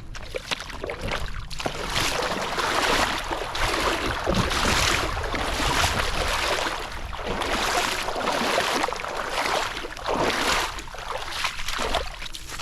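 River water splashing and churning around someone wading through it, in irregular surges.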